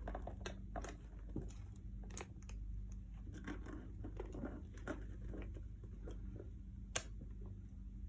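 Quilted caviar-leather handbag being handled: faint rustling and light taps, with one sharp click about seven seconds in, over a low steady hum.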